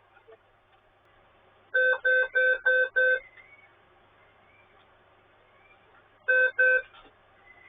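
Dell Inspiron Mini 11z netbook giving a power-on beep code: five short, evenly spaced beeps at one steady pitch, then after a pause of about three seconds two more. The beeps signal a hardware fault while the screen stays dark.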